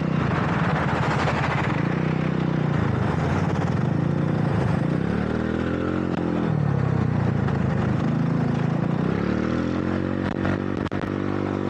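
Wolf Rugby 150cc motorcycle's engine running under way, its pitch rising and falling twice as the rider opens and eases the throttle, over steady wind and road noise.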